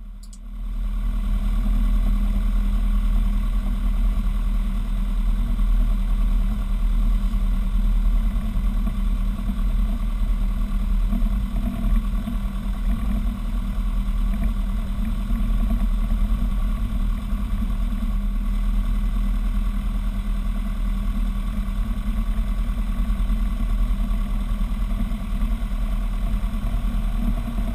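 Robin DR400 light aircraft's piston engine and propeller running steadily at taxi power, heard from inside the cockpit.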